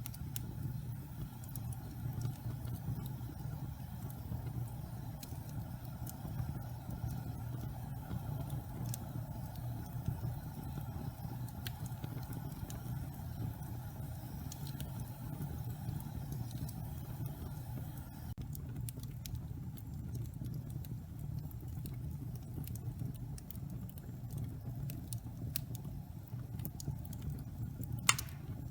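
Wood fire crackling in a fireplace: a steady low rumble under scattered small snaps, with one sharper, louder pop near the end.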